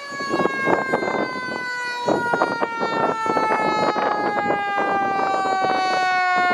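Fire apparatus's Federal Q mechanical siren winding down, one long wail falling slowly in pitch as the rotor coasts, over passing vehicle noise.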